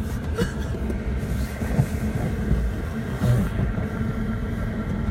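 Steady low rumble of a vehicle.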